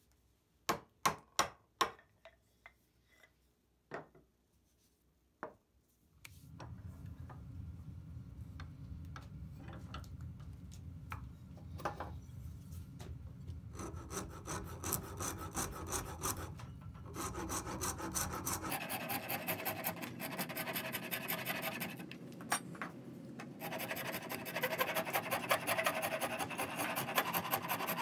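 A few sharp taps in the first seconds, then a hand file scraping back and forth across the end grain of a wooden mallet head, blending in a wooden patch. The strokes become louder and more regular about halfway through, and louder again near the end.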